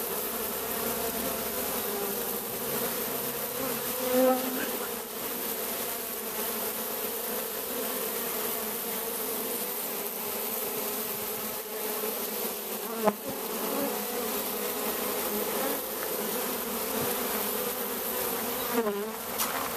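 A colony of honeybees buzzing steadily at the entrance hole of a wine-barrel hive, the massed hum of many bees flying in and out. One sharp click about two-thirds of the way through.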